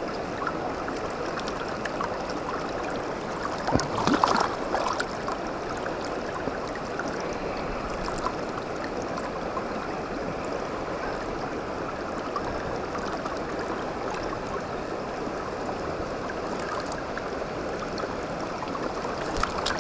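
Shallow stream running steadily over stones, with a few brief splashes about four seconds in as hands move a trout in the water.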